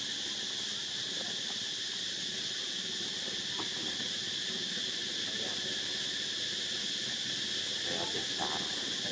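Steady, high-pitched insect chorus, an even drone that does not change, with a few faint brief sounds near the end.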